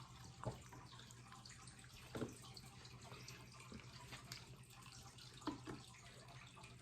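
Near-quiet room with a steady low hum and a few faint, short knocks or clicks, one about half a second in, one about two seconds in and two close together near the end.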